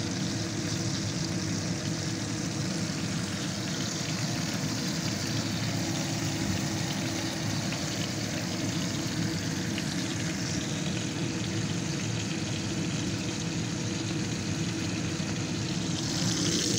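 Steak sizzling steadily in a pan under a mesh splatter screen, over a steady low hum. It turns louder and brighter near the end.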